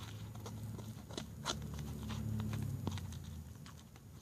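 Homemade glue-and-toothpaste slime being worked and stretched, giving scattered sticky clicks and crackles.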